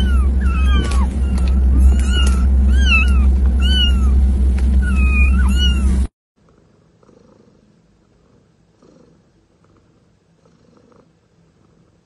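A litter of kittens meowing again and again, a high call about once a second, over the steady low rumble of a moving car. The sound cuts off abruptly about halfway through, and a cat then purrs faintly in slow swells.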